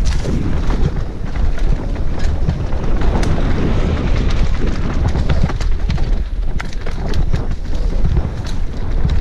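Mountain bike ridden fast down a dirt singletrack: wind buffeting a helmet-mounted action camera's microphone over a steady low rumble of tyres on dirt, with frequent sharp clicks and rattles as the bike hits rocks and roots.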